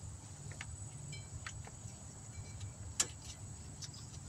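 Light metallic clicks and clinks of brake pads and their steel clip hardware being handled and seated, with one sharper click about three seconds in, over a low steady hum.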